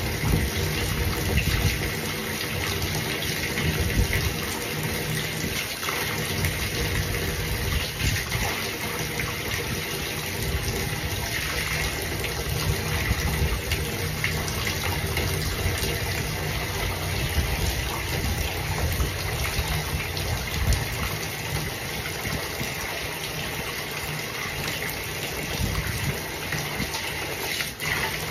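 Water running steadily into a bathtub while hair is being washed.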